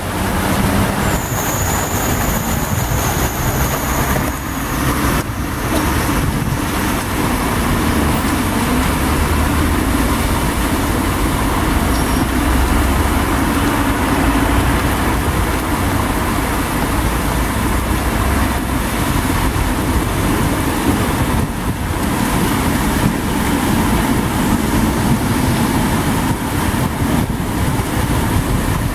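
Heavy rain falling on a flooded street, with cars and vans driving through the standing water, their engines and tyres splashing. A louder vehicle rumble rises and passes in the middle.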